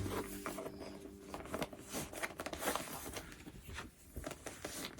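Irregular small clicks, taps and scuffs of items being turned and pushed into a structured leather handbag.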